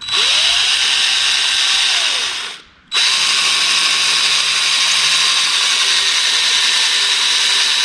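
Electric drill boring into a broken-off muffler bolt in a motorcycle engine's cylinder head. It runs in two steady bursts: one of about two and a half seconds, a brief stop, then nearly five seconds more.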